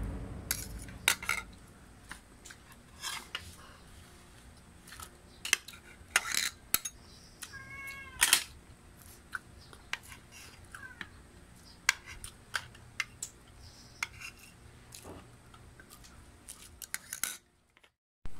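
Scattered small clinks and taps of a spoon and dishes on a ceramic plate and glass table during a meal eaten by hand. About eight seconds in there is one short high-pitched call that rises and falls, like a cat's meow.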